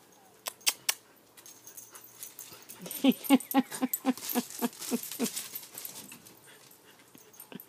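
Two small dogs play-fighting: one gives a quick run of short, pitched yaps, about four a second, over the scuffle and scratching of paws and claws on the patio stone.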